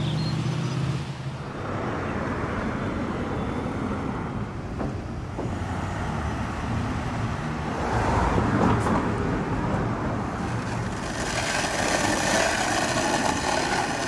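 City street traffic noise: a steady wash of passing cars.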